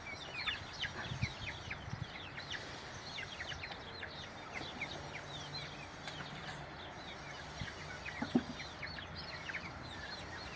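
Chickens: a steady stream of short, high chirps, several a second, with one short, lower cluck about eight seconds in.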